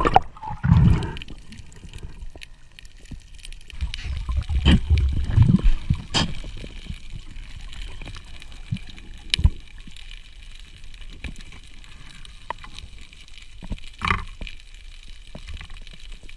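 Underwater sound heard through a diver's camera: a muffled water hiss with low rumbling bumps near the start and again a few seconds in, and a few sharp clicks spread through the rest.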